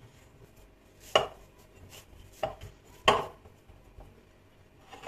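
Cookie dough being kneaded by hand in a glass bowl, with a few sharp knocks of the dough and bowl: two loud ones about a second and three seconds in, lighter ones between, and another at the very end.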